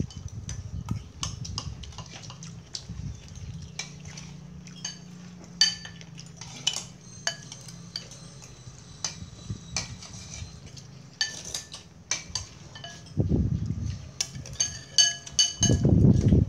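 Metal spoon clinking and scraping against a ceramic bowl of rice gruel while someone eats: scattered sharp clinks, some with a brief ring. Near the end come two louder, dull low thumps.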